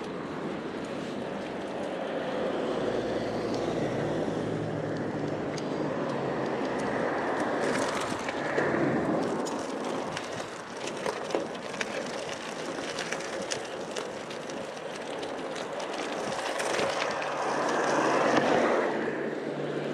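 Wind and road noise of riding a bicycle, with passing traffic swelling louder about eight seconds in and again near the end.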